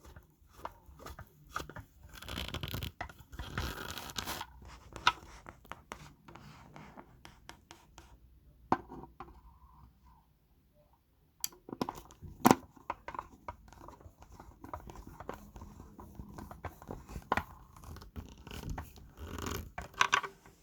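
Handling noise from hands working on the speaker and tools: scattered clicks and knocks with scraping and rustling, busiest a couple of seconds in, with a short quiet spell about halfway through.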